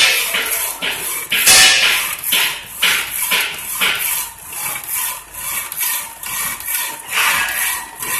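Metal-cutting power saw cutting through a steel bar clamped in its vise, with a hissing, rasping stroke repeating about twice a second.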